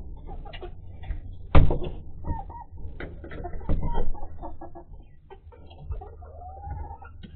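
A flock of hens clucking and squawking on their roosts as they jostle for perching spots at night. A string of short clucks is broken by a sudden loud squawk about one and a half seconds in, and a drawn-out call that rises and falls comes near the end.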